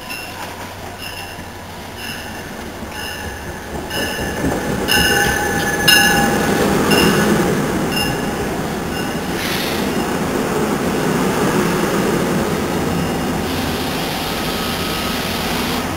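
NJ Transit diesel-hauled commuter train pulling into the station: a warning bell rings about twice a second for the first half while the train's rumble grows. The coaches then roll past with a steady loud rumble and wheel squeal.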